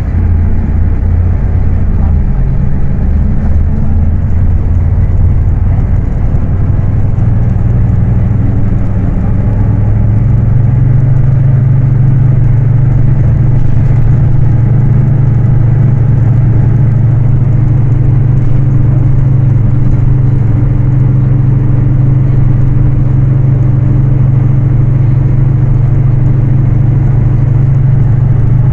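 Scania K310UA city bus's five-cylinder diesel engine running under way; about a quarter of the way in it accelerates, its pitch climbing for a few seconds, then it holds a steady cruising drone.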